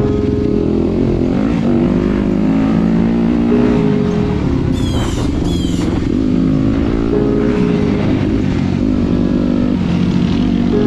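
Yamaha dirt bike engine accelerating along a dirt trail, its pitch climbing through each gear and dropping back at every shift, several times over, with a low rumble under it. Two brief high chirps sound about five seconds in.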